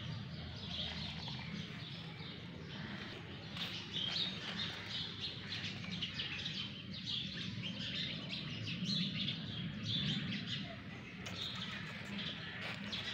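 Many small birds chirping continuously in quick, overlapping calls, over a steady low hum.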